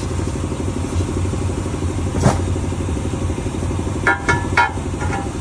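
An engine idles steadily with a low, pulsing rumble. There is one sharp knock a little over two seconds in, and near the end a quick series of four ringing metal clinks, typical of steel tools striking a steel wheel rim.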